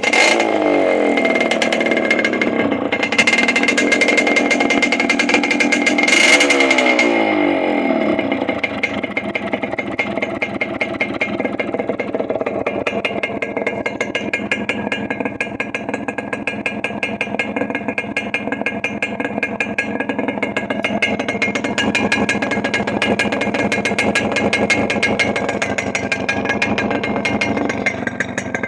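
Small two-stroke motorcycle engine and exhaust, blipped to higher revs a couple of times in the first eight seconds and falling back each time, then settling to a steady idle with a fast even beat.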